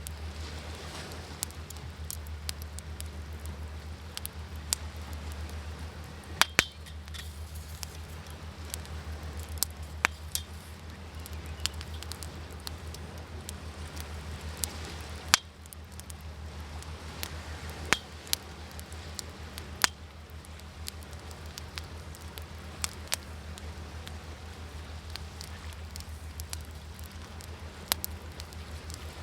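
Wood fire crackling, with scattered sharp pops and snaps, over a steady wash of sea waves.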